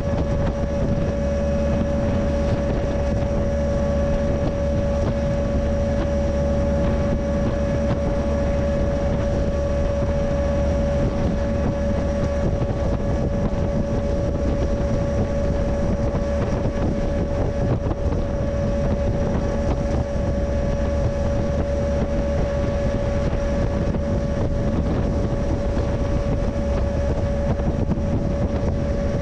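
Moving freight train heard from on board: a constant mechanical drone with one steady held tone over a heavy low rumble, plus wind noise, unchanging throughout.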